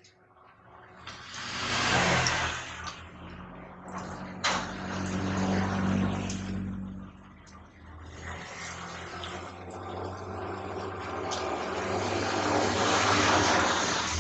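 A motor vehicle's engine running with a low hum, swelling up, dipping briefly past the middle and swelling again near the end. A few sharp clicks, like a fork against a plate, sound over it.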